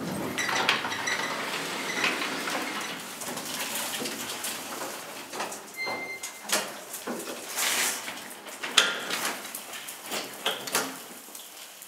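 Irregular clicks, knocks and rattles of a StavoLift service elevator car and its doors as it stands at the ground floor, with one short steady high beep about six seconds in.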